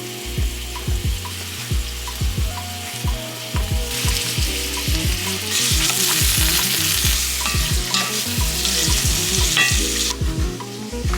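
Food frying and sizzling in a hot pan, the sizzle growing louder from about halfway in, over background music with a steady beat.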